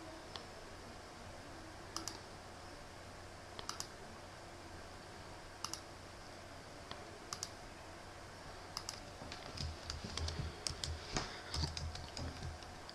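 Faint computer mouse clicks, single and paired like double-clicks, a second or two apart, then a short burst of keyboard typing with light thumps near the end.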